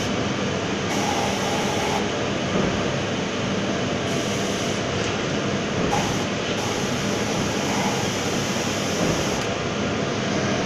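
Steady, loud rushing noise of a paint spray booth while an electrostatic spray gun sprays water-based paint into the inside of a glass cup.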